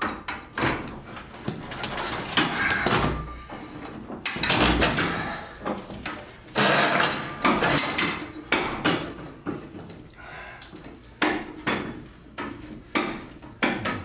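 Garage door torsion spring being slid by hand along its steel torsion shaft: irregular metal clanks and knocks with scraping.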